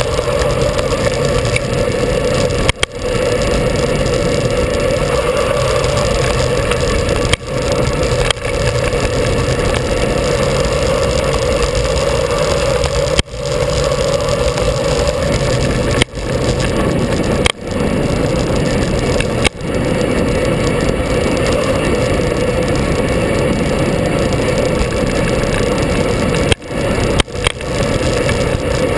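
Motorcycle engine running under way, heard from an onboard camera, loud and steady. Several times it drops away suddenly for a moment and picks up again within about half a second.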